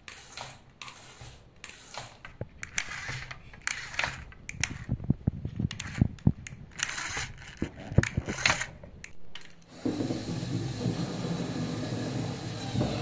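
Irregular clicking and rattling of LEGO Technic plastic parts. About ten seconds in, a LEGO electric motor starts running steadily with a low hum, driving the model's winch.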